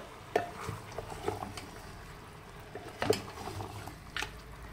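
Wooden spoon stirring beef rib pieces and vegetables in an aluminium pot, over a faint steady sizzle of the browning meat, with a few light knocks of the spoon against the pot.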